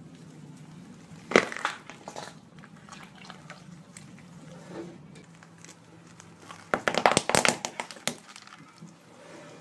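A car tyre rolling over an aloe vera leaf, one short wet crunch about a second in, then light crackles. Near the end, a quick run of sharp cracks and pops as a tyre crushes a group of small red objects.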